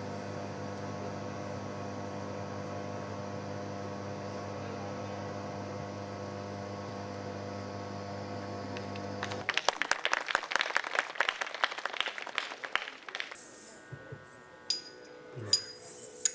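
A steady, held musical drone sounds and cuts off abruptly about nine seconds in. Audience applause follows for about four seconds. It gives way to a few bright metallic clinks and a new quiet drone.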